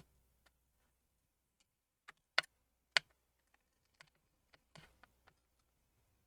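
Small repair tool clicking and tapping against an iPhone 6s Plus's battery and housing while prying under the battery, with two sharper clicks about two and a half and three seconds in, and a few fainter ticks and a brief scrape after.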